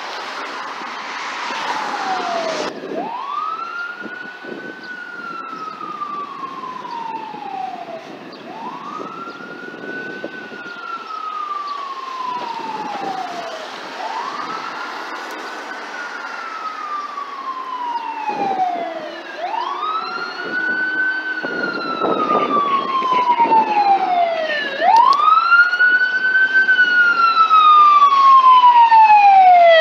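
Los Angeles Fire Department tractor-drawn ladder truck's siren sounding a slow wail: each cycle rises quickly and falls slowly, about every five and a half seconds. It grows louder as the truck approaches. A rushing noise fills the first few seconds and cuts off sharply.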